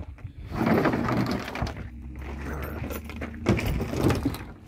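Tool backpacks being handled and shifted on a pickup's tailgate bed liner: rustling, then a few knocks near the end.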